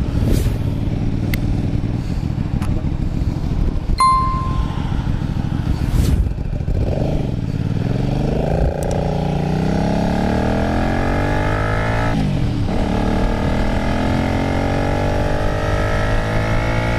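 Kasinski Mirage 250's V-twin engine heard on board with wind rush on the microphone. At first it runs at low revs, then from about a third of the way in it accelerates, its revs climbing steadily. The revs dip once about three-quarters of the way in, then climb again.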